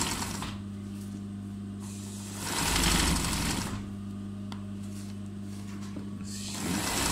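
Zigzag sewing machine stitching machine embroidery through hooped fabric in three short runs of about a second each: near the start, in the middle and near the end. A steady low hum carries on between the runs.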